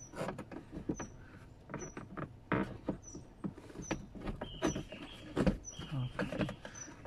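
Hands handling plastic trim and dashcam cable around the rear-view mirror mount: scattered clicks, knocks and rustles as the cable is pushed in behind the trim. A short high chirp repeats steadily a little more often than once a second.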